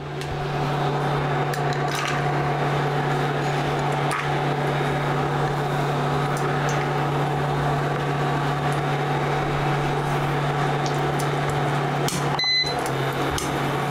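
Cashews frying in hot oil in a steel kadhai, a faint sizzle under a steady low electrical hum that is the loudest sound throughout. Near the end a spatula stirs them and a short high tone sounds.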